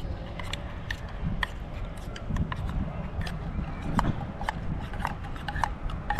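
A fork clicking, tapping and scraping against tableware while eating, in irregular light clicks over a low rumble.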